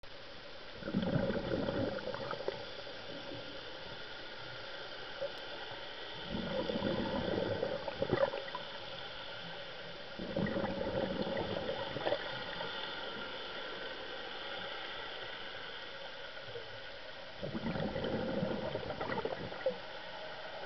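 A scuba diver's exhaled bubbles gurgle out of the regulator in four breaths, each lasting about two seconds and coming roughly every five seconds, heard underwater over a steady hiss.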